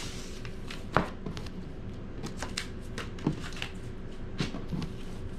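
Cardboard and paper packing being handled and a stack of bagged comics set down on a wooden table: light rustling with a few short knocks, the sharpest about a second in.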